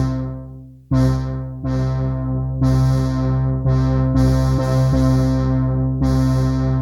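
Waldorf Quantum hybrid synthesizer playing a factory preset: a run of chords over a deep bass, each with a bright, piano-like struck attack, about seven new ones in all, the last ringing out and fading near the end.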